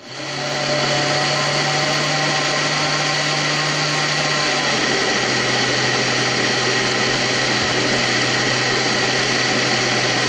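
Countertop jug blender motor running, blending cream with mango purée: it switches on and spins up within the first second, then runs steadily, its hum dropping slightly about four and a half seconds in.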